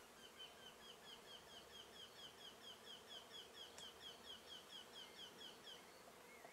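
A bird calling a quick run of about twenty short, down-slurred notes, roughly four a second, which stops shortly before the end. Under it is the faint, steady hum of honey bees flying around an open top-bar hive.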